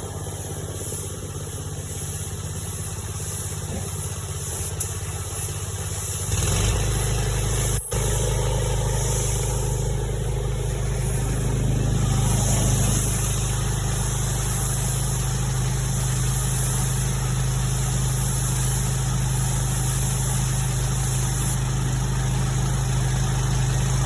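A vehicle engine idling steadily, growing louder about six seconds in, with a brief break a couple of seconds later.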